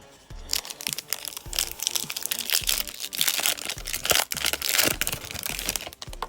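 Crinkly foil wrapper of a trading card pack being torn open and crumpled in the hands, a dense crackling that runs several seconds over quiet background music.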